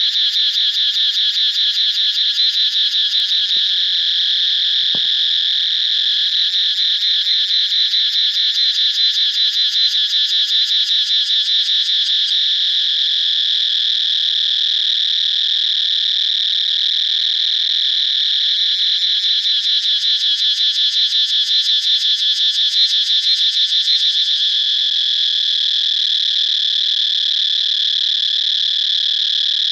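Dense, unbroken chorus of many small animals calling together in rapid, high-pitched trills, steady throughout.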